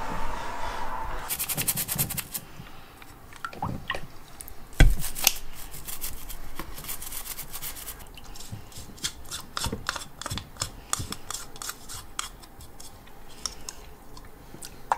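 Toothbrush bristles scrubbing cat hair and gunk off a bathroom sink's pop-up drain stopper, in quick runs of short brushing strokes, with one sharp knock about five seconds in.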